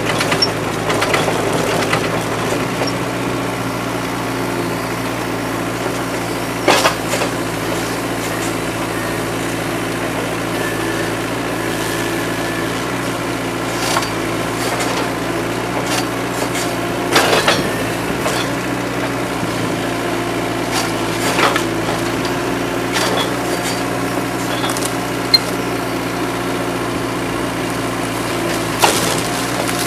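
Komatsu PC40-7 mini excavator's diesel engine running steadily, with several sharp cracks and crunches of splintering wood as its rake breaks into demolition debris.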